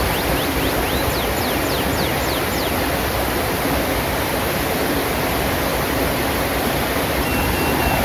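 Shallow rocky stream rushing steadily over boulders. A bird calls over the water in the first few seconds with a quick run of falling whistled notes. Near the end there are three short notes, each held on one pitch.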